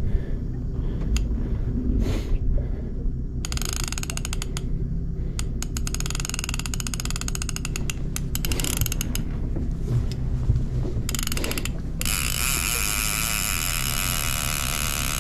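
Heavy conventional fishing reel ratcheting and clicking in fast runs while a large hooked halibut loads the line. About twelve seconds in, the clicking gives way to a steady hiss.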